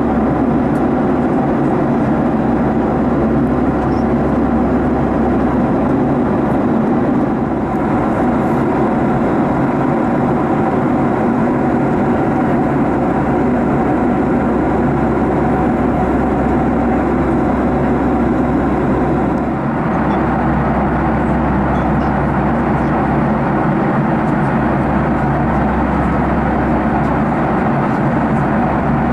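Steady jet engine and airflow drone of a Boeing 757-300 airliner, heard from inside the passenger cabin.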